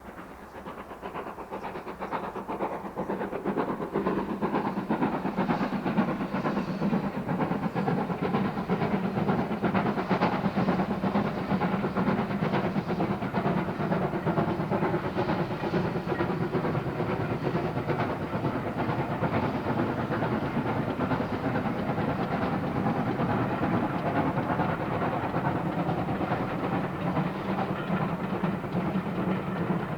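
Stanier Mogul steam locomotive 42968 working a train, its exhaust beating in a dense, fast rhythm with the clatter of the wheels on the rails. The sound grows louder over the first few seconds, then holds steady.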